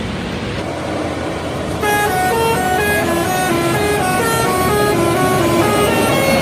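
Indonesian bus telolet horn playing a quick tune of short stepped notes, starting about two seconds in, over a steady rumble.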